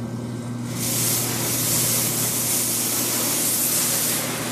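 Steady hissing spray that starts just under a second in and stops shortly before the end, over a low steady hum.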